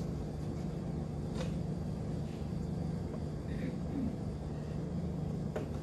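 Steady low room hum, with two faint light knocks from a cake pan handled in oven mitts, about a second in and near the end.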